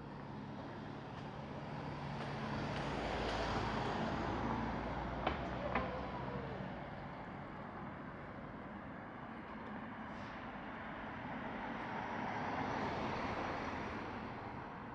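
Road traffic passing: two vehicles go by, each swelling and fading, the first about four seconds in and the second near the end. Soon after the first pass there are two short sharp sounds about half a second apart.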